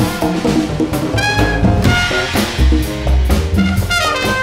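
Small jazz combo playing a swing tune: trumpet phrases over upright bass, piano and drum kit, with the drummer keeping time on the ride cymbal.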